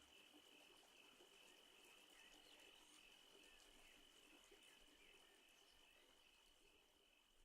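Near silence, with a faint steady high trill and a few small chirps, fading away near the end.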